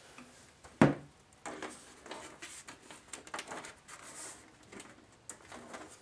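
Cables being handled and tucked into the back of a PC case: a sharp knock against the case about a second in, then irregular rustling and light clicks of wires and plastic being pushed into place.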